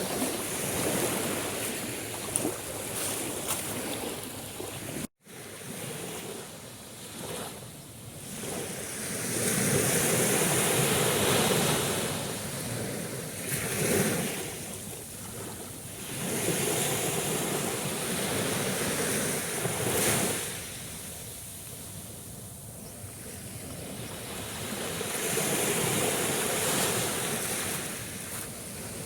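Sea waves washing in and breaking on the shore, the surf swelling and easing off every few seconds. The sound cuts out for an instant about five seconds in.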